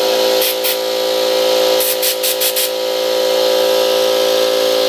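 A fidget spinner driven by a jet of compressed air from an air compressor: a very loud, steady high whine from the spinning spinner over a hiss of air, with a few short surges of hiss about half a second in and again around two seconds in.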